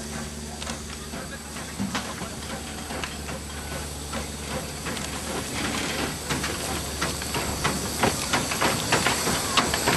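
Small steam tank locomotive getting under way and passing close, steam hissing and its exhaust chuffing; the chuffs come thicker and louder as it draws near.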